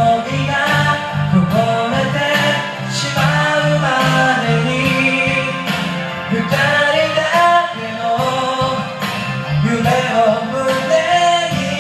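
Karaoke of a pop ballad: backing music with guitar and a man singing along.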